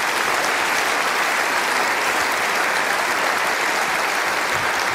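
A large seated audience applauding, a steady dense clapping that holds at one level throughout.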